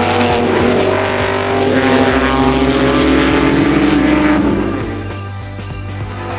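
A racing car's engine running hard at speed, its note gliding up and down as it drives by, then fading about five seconds in, with background music underneath.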